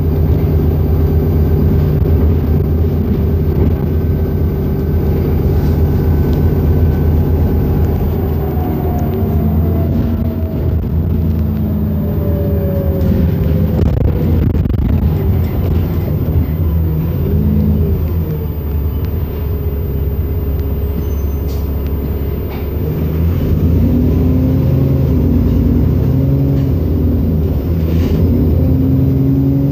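Enviro400 double-decker bus heard from inside the passenger saloon: the diesel engine and drivetrain hum steadily, the pitch falling and rising several times as the bus slows and picks up speed, with a brief easing off a little past the middle.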